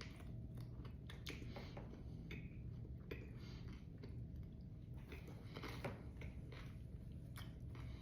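Close-up chewing of a big mouthful of chamoy pickle, with irregular crunches as it is bitten and chewed.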